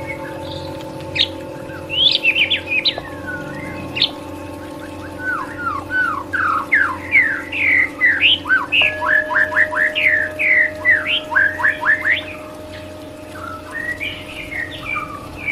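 Recorded song of a white-rumped shama (murai batu): bursts of quick chirps and whistles, then a fast run of short down-slurred notes from about five to twelve seconds in. Underneath is a steady drone of held tones that changes pitch twice.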